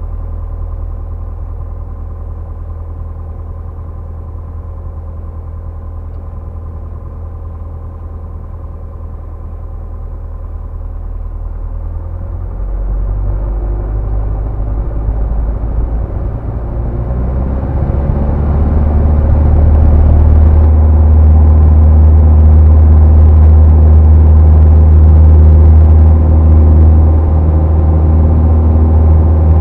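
Single-engine piston airplane's engine and propeller, heard inside the cockpit. It runs low at taxi power, then the throttle is opened in two steps, about 13 and 18 seconds in, to a loud, steady full-power run for the takeoff roll.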